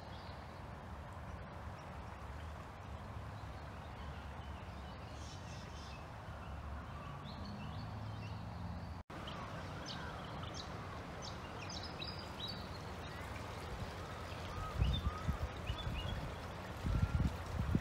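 Floodwater of a swollen river flowing with a steady rush, while birds chirp in short calls through the second half. A few low rumbles come near the end.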